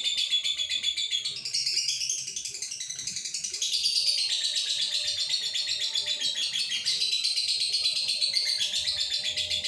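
Male lovebird in breeding condition singing a long, unbroken run of rapid, high chattering.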